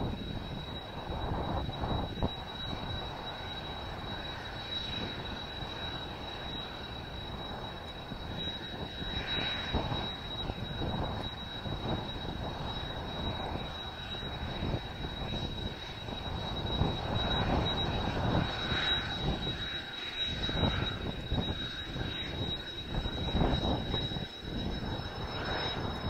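Kawasaki T-4 jet trainer's twin turbofan engines running at taxi power, a steady high whine, under heavy, gusty wind buffeting on the microphone.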